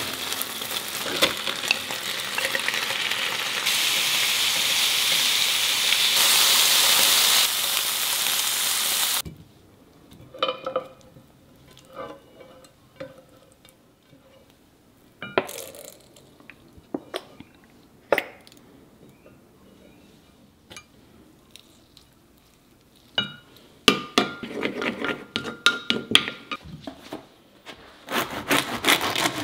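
Chicken pieces frying in a pan give a loud, steady sizzle while they are stirred with chopsticks; the sizzle cuts off suddenly about nine seconds in. Then come scattered clinks and scrapes as the cooked chicken and shrimp are tipped from the pan into a ceramic dish. Near the end, a serrated bread knife saws back and forth through a crusty sourdough loaf on a wooden board.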